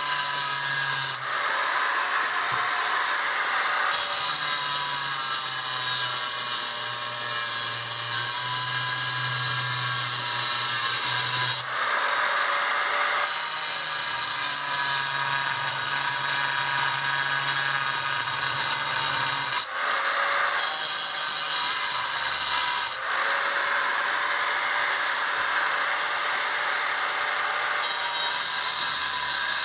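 Angle grinder running at high speed and grinding a calcite ammonite fossil: a loud, steady, high-pitched whine. The tone shifts briefly several times, near the start and again at about 12, 20 and 23 seconds in.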